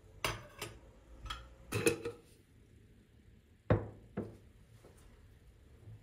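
Glass jar and glass bowl clinking and knocking on a kitchen countertop: a handful of separate sharp knocks, the loudest about two seconds in and again just before four seconds.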